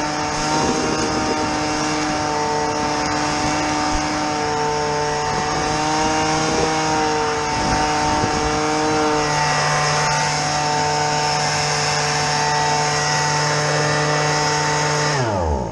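A motor-driven machine running steadily at a constant speed, then switched off near the end, its pitch falling as it spins down.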